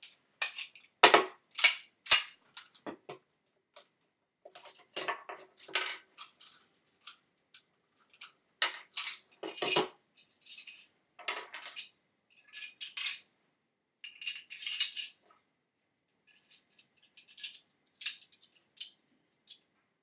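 Steel parts of an M1911A1 pistol clicking, sliding and clinking as the pistol is field-stripped by hand. The sounds come as irregular bunches of sharp metallic clicks, with the loudest snaps about a second or two in and again near the middle.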